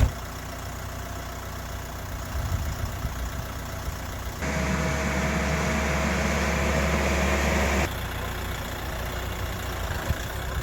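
An engine idling steadily, with a louder stretch in the middle that starts and stops abruptly.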